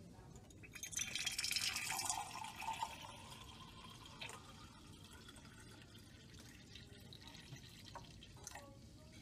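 Tap water running from a lab sink faucet into a glass beaker. The flow is loudest from about one to two and a half seconds in, then settles to a quieter, steady run as the beaker fills.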